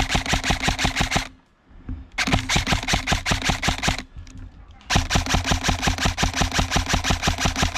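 Airsoft rifle firing on full auto in three long bursts of rapid, evenly spaced shots, with short pauses between them.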